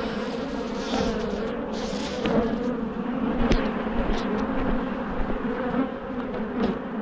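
Honeybees buzzing loudly and steadily around an opened hive, a colony that is defensive and agitated. A single sharp click comes about three and a half seconds in.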